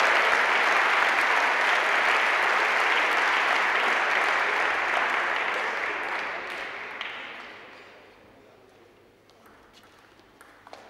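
Spectators applauding a table tennis point; the clapping fades out about seven or eight seconds in. Near the end come a few faint clicks of the ball on bat and table as the next rally begins.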